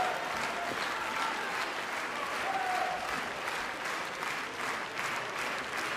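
Large theatre audience applauding steadily at a ballet curtain call, a dense, even clatter of clapping.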